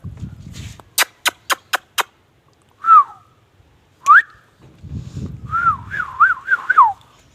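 A run of about five quick sharp clicks, then two short whistled notes and a longer wavering whistle that rises and falls several times near the end.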